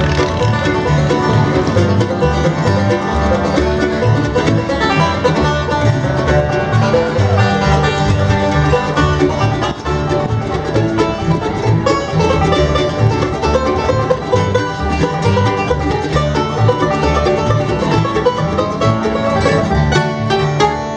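A bluegrass band playing an instrumental tune live on mandolin and acoustic guitar.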